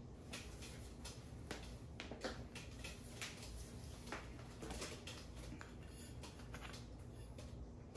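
Faint handling noise: scattered light clicks and taps, irregularly spaced, over a low steady hum.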